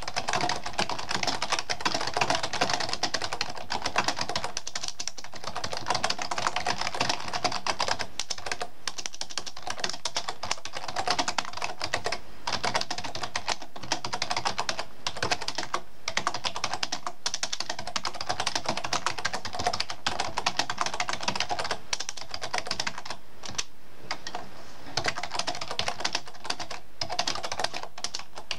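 Typing on a computer keyboard: a quick, steady stream of key clicks, broken by a few short pauses.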